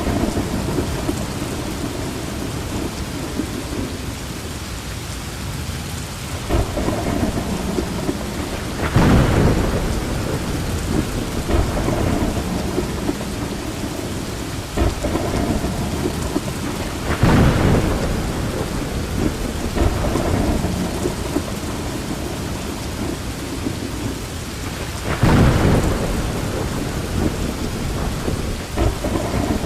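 Steady rain with rolling thunder; three louder rumbles of thunder swell up and fade, roughly eight seconds apart.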